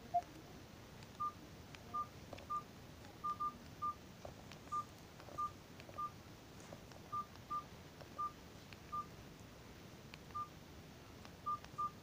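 FinePower SR245 mobile phone keypad beeps as its buttons are pressed to scroll through the ringtone menu. There are about sixteen short beeps, all at the same pitch and irregularly spaced, with one lower-pitched beep just after the start.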